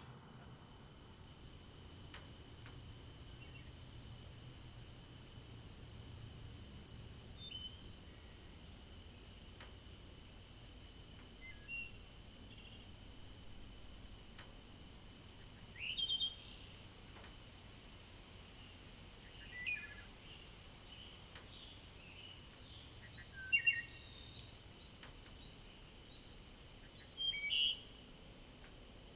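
Evening insect chorus: a steady, fast-pulsing cricket trill with fainter steady insect tones around it. Four short bird chirps come at intervals, the loudest about three-quarters of the way in.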